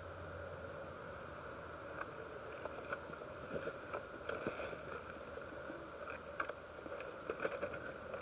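Faint rustling and scattered light clicks, as of gear or clothing being handled, over a steady background hum.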